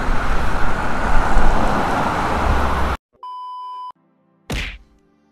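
Road traffic noise with a low rumble for about three seconds, cutting off suddenly. It is followed by a short steady electronic beep, then a single sharp thunk of an edited sound effect over faint music.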